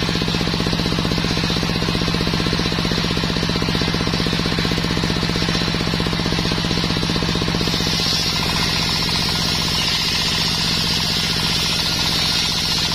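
Belt-driven table circular saw running with a rapid, even pulsing, its blade ripping along a sengon (albizia) plank. The high cutting hiss grows stronger in the second half.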